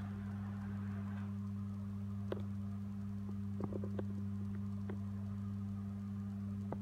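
Electric projector screen's motor humming steadily as the screen rolls up into its ceiling housing, with a few light clicks scattered through, the most at about four seconds in.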